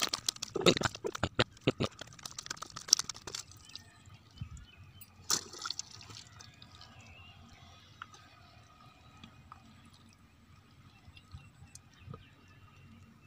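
Wet mud squelching and slapping as it is dug and pulled from a burrow by hand and with a hoe. A busy run of wet clicks and smacks fills the first few seconds, then it goes quieter, with one loud squelch about five seconds in.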